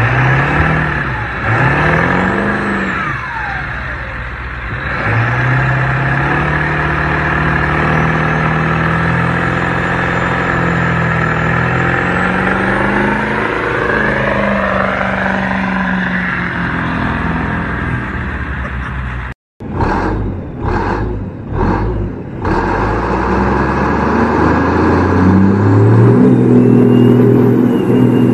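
Diesel pickup engine revving hard, its pitch rising and falling, during a smoky burnout. After a sudden break, a second big diesel truck gives three short revs, then winds up to a steady high-rev burnout.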